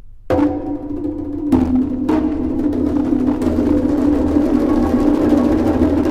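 Background music with drums: it comes in with a sharp hit about a third of a second in, then a held low chord with further drum strikes.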